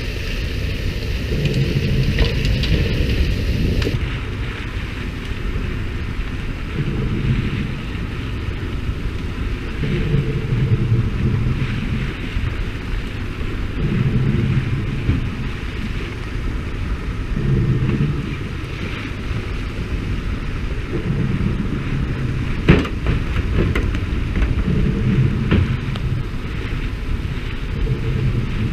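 Wind buffeting the microphone over the steady noise of a fishing boat and the hiss of water spray on the sea surface. The low rumble swells and eases every three or four seconds, and one sharp knock comes a little past the middle.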